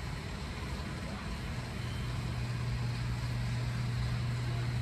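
A steady low hum over an even background noise, growing louder about two seconds in.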